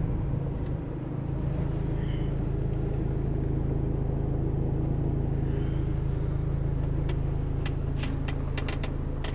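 A car driving, heard from inside the cabin: a steady low drone of engine and road noise. Near the end comes a quick, irregular run of sharp clicks.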